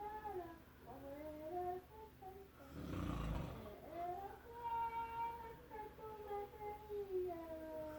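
A woman singing a slow, wavering melody while a sleeping man snores once, about three seconds in.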